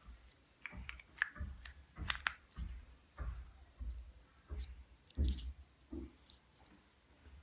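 Plastic-handled carving chisels handled close up: irregular light clicks and knocks of plastic caps and handles, with low bumps of the hands against them, several a second.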